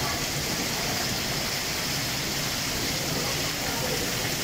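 Heavy thunderstorm downpour: a steady, loud rush of rain pouring onto parked cars and the street.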